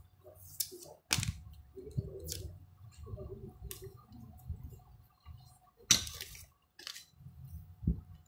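Handling noises: a few sharp knocks and clicks, one about a second in, one near six seconds and one near the end, with faint low rustling between.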